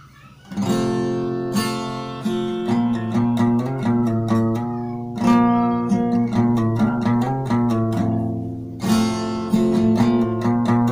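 Acoustic guitar playing a song's intro, with chords struck at intervals and single notes picked between them. It starts about half a second in.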